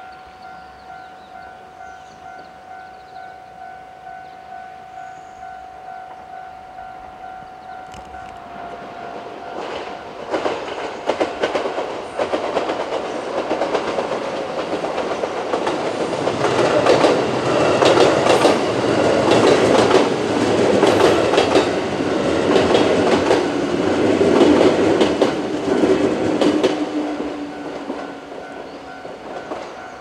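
Japanese railway crossing alarm ringing in a steady two-strokes-a-second pattern while a six-car JR West 221 series electric train approaches and passes. Its wheels clatter over the rail joints. The train noise builds from about a third of the way in, is loudest past the middle and fades near the end.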